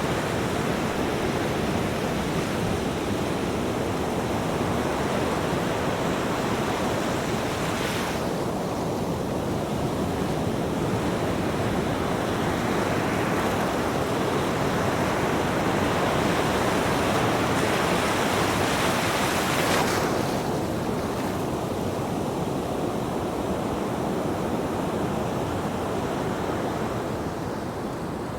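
Ocean surf rushing and washing in a steady wash of noise. The hiss thins suddenly about eight seconds in and again about twenty seconds in, and it swells loudest between those two points.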